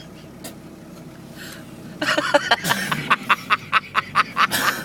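A person's voice in rapid, breathy bursts, about five a second, starting about two seconds in and running for nearly three seconds.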